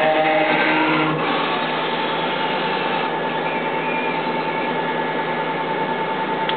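Haas TM-1 CNC mill spindle spinning up with a rising whine that levels off about a second in, then running at a steady whine over a steady hiss.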